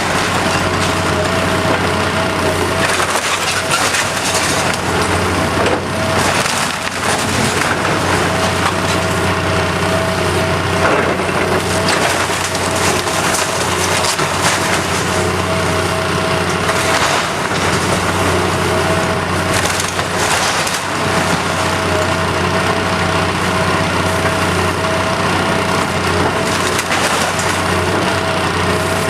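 A wooden house splintering and cracking as it is torn down, with many sharp cracks and crunches over the steady running of a heavy machine's engine.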